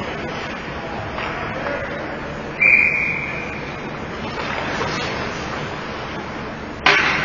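Hockey referee's whistle, one blast of about a second about two and a half seconds in, signalling a stoppage in play, over a steady hiss of rink noise. A loud sharp bang near the end.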